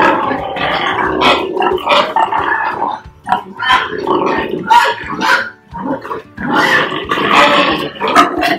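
Pigs grunting and squealing in short, irregular bursts during natural mating, a Duroc boar mounted on a Large White sow.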